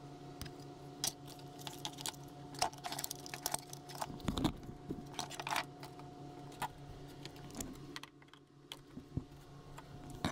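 Small clicks and rattles of a plastic battery-adapter housing, its wires and connectors and bench tools being handled, over a steady hum.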